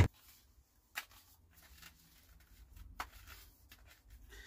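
Light clicks and rustles of a plastic bike helmet being put on and settled on the head, with a couple of clearer taps about a second in and again near three seconds.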